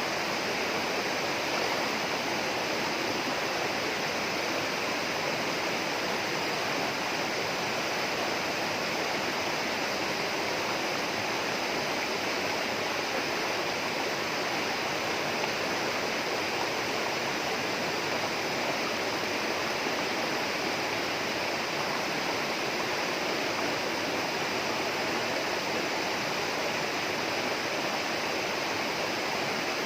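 Flowing water rushing steadily and unbroken in the rainforest.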